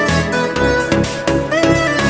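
Background music with a steady beat and a bowed-string melody.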